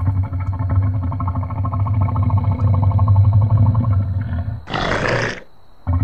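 Deep, rough animal growl at a steady low pitch, given as the voice of an ancient crocodile, running for about four and a half seconds. It breaks off into a short hissing burst about five seconds in, and the growl starts again just before the end.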